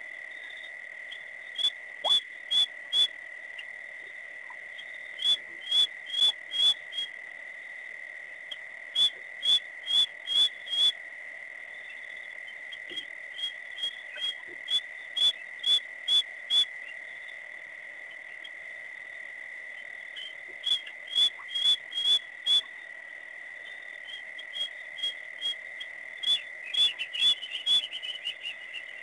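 Night chorus at a waterhole: a steady high-pitched insect drone, with repeated runs of four to six sharp clicking frog calls at about two a second, six runs in all.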